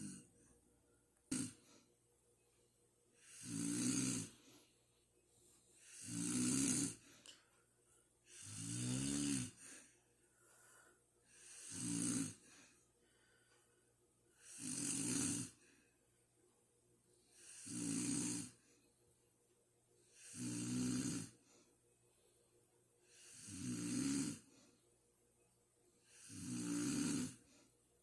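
A person snoring in a slow, regular rhythm, one snore about every three seconds. Each snore swells and fades, with a rattly low tone under a breathy rush. A single short click sounds about a second and a half in.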